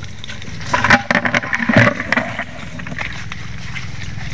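Mangrove branches and leaves rustling and snapping close to the microphone as someone pushes through the thicket, with a burst of sharp cracks about a second in. A steady low rumble runs underneath.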